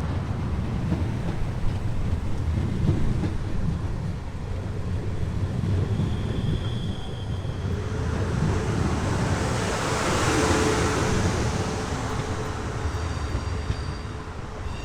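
South Western Railway passenger train running into the platform: a steady heavy rumble with a rushing hiss that swells to its loudest about ten seconds in, and brief high squeals from the wheels or brakes.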